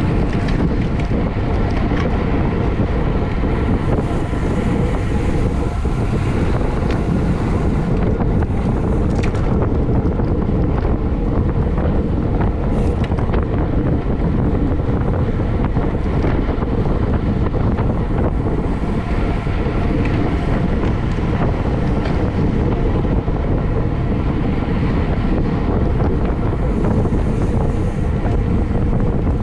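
Steady, loud wind rush over the microphone of a camera moving at racing speed on a bicycle.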